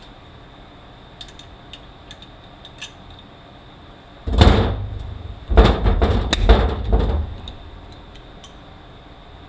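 Light metal clicks, then two bouts of loud clunking and scraping as heavy metal transmission parts are moved and knocked about on the bench, the first about four seconds in and the longer one from about five and a half seconds.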